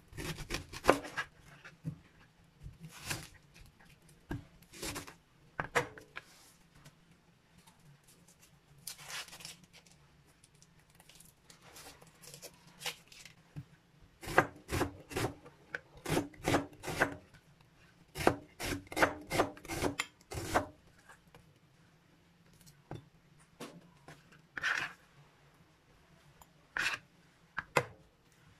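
Chef's knife cutting an onion on a plastic cutting board: scattered knocks and scrapes at first, then two quick runs of chopping about halfway through, a few strokes a second, and a few single knocks near the end.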